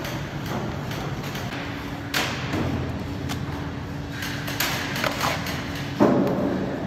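Metal scraper knocking and scraping against steel pans as carrot halwa is shovelled from a large wok into a steel tray: a few knocks, the loudest about six seconds in. A steady low hum starts about a second and a half in.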